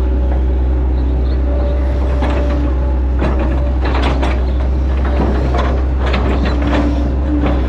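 Hitachi Zaxis 110 excavator running, heard from the cab: a steady low diesel drone with a hydraulic whine that comes and goes. From about two seconds in until near the end there is a run of clanks and scraping as the bucket presses and tamps the mud bank.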